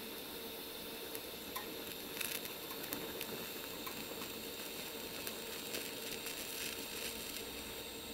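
TIG welding arc on thin sheet steel, held steady while filler rod is dabbed in: a quiet, steady hiss and sizzle with a faint hum and scattered small crackles.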